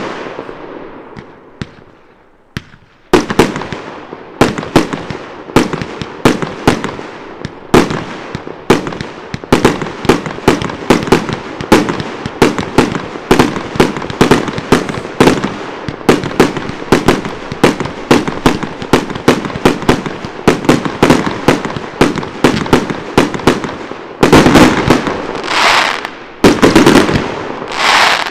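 Aerial fireworks going off. A fading crackle from a large burst gives way, about three seconds in, to a long run of sharp bangs about two a second. Near the end comes a denser, louder barrage of bursts.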